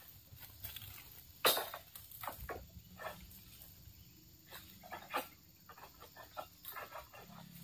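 Long-pole harvesting sickle working at oil palm fronds in the crown: scattered short knocks and scrapes at irregular intervals, the loudest about one and a half seconds in.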